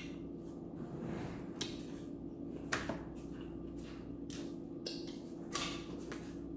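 Eating sounds: a person chewing food, with a handful of short wet smacks and clicks spaced a second or so apart over a steady low hum.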